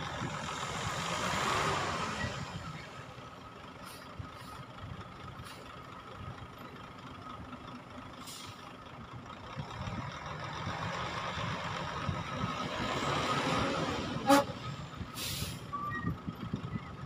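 Diesel dump truck running as it creeps forward with its tipper bed raised, its engine noise swelling twice. Near the end there is a sharp click, then a short burst of air hiss like an air brake.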